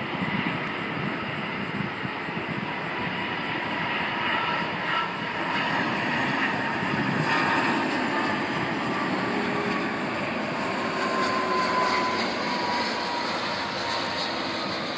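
Airbus A330 airliner landing, its jet engines running as a steady roar with a faint whine. The noise swells a little partway through, as the plane reaches the runway, and again a few seconds later during the rollout.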